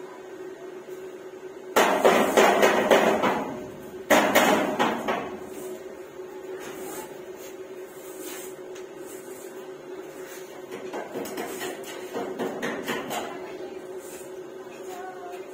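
Rapid metallic knocking and clattering in two loud bursts of a second or so each, about two and four seconds in, with lighter clatter later on, over a steady hum.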